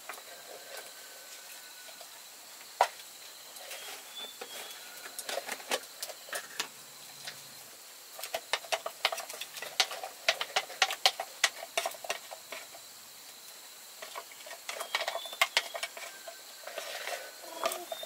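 Irregular light clicks and taps, sparse at first, then in quick clusters from about eight seconds in and again near the end.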